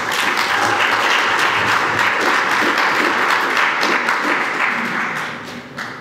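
Audience applauding after a talk, dying away near the end.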